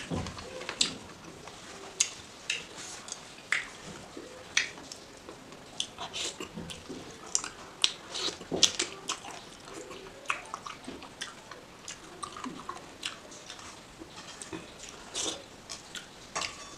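Close-up mouth sounds of a person eating chicken curry: irregular wet smacks, clicks and chewing, some much louder than others.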